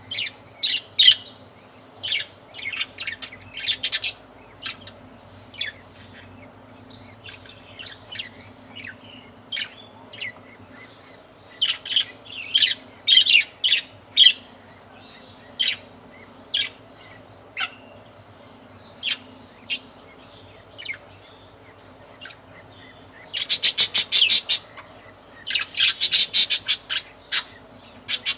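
Budgerigars chirping, short calls scattered throughout. Two bursts of rapid chattering, each a little over a second long, come near the end.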